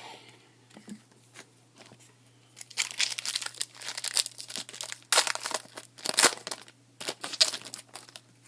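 A trading-card pack wrapper being torn open and crinkled, in a run of rustling bursts lasting several seconds.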